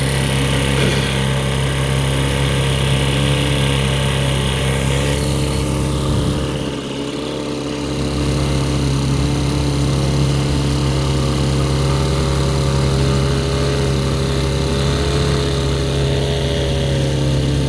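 Outboard motor running steadily under way, its pitch wavering slightly, easing off briefly about seven seconds in before picking back up.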